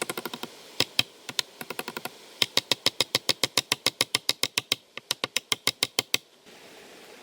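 A fast series of sharp taps or knocks, about six a second in bursts with short pauses, which stops abruptly near the end; a steady soft hiss follows.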